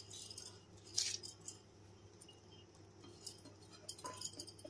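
A spoon clinking and scraping against the metal pot of a pressure cooker while rice is stirred into the boiling liquid: one sharp clink about a second in and several lighter ones near the end, over a low steady hum.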